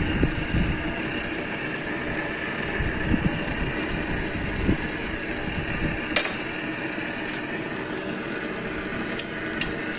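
Chicken afritada in tomato sauce simmering in a nonstick pan on the stove: a steady bubbling hiss, with one sharp click about six seconds in.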